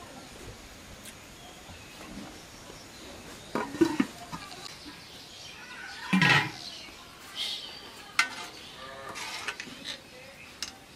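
Metal serving spoon knocking and scraping against a steel karahi of curry, several separate clinks, the loudest a little after six seconds in.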